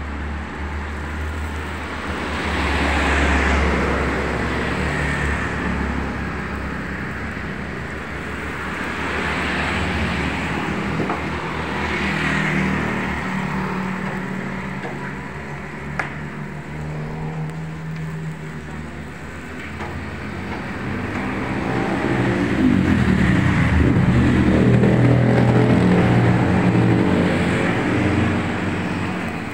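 Road traffic passing close by: several vehicles go by one after another, each swelling and fading over a few seconds, with the loudest and longest pass near the end and a single sharp click about halfway through.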